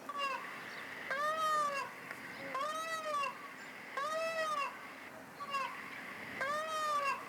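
Asian peafowl calling repeatedly, each loud call rising and then falling in pitch, about four long calls roughly a second and a half apart with a couple of shorter ones between.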